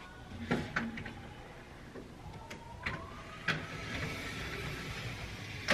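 Mirrored sliding door of an IKEA Pax wardrobe being slid along its track, with several light clicks and knocks, the loudest at the very end.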